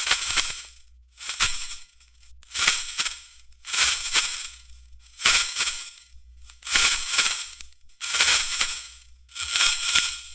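A designer shopping bag being rustled in repeated handfuls, about eight crinkly bursts coming roughly every second and a half.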